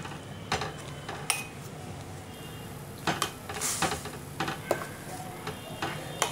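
Metal spoon stirring milk in a stainless steel pot, clinking and scraping against the pot's sides and bottom in irregular strokes, about eight of them.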